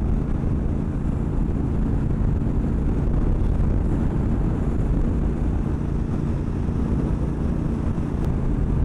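Triumph Bobber Black's 1200 cc parallel-twin engine running steadily at motorway cruising speed, about 75–80 mph, under a constant rush of wind noise.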